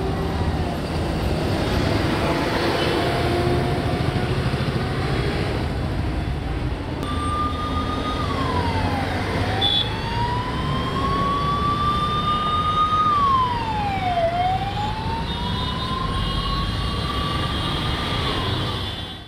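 Heavy road traffic with a low, steady rumble of engines. About seven seconds in, an ambulance siren starts wailing over it in slow falls and rises, each cycle about five seconds long.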